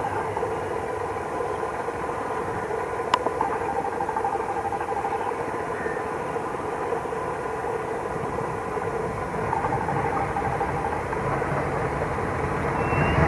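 ALCo diesel locomotive running steadily, a continuous mechanical drone with a buzzing rattle that swells and fades twice. A single sharp click about three seconds in.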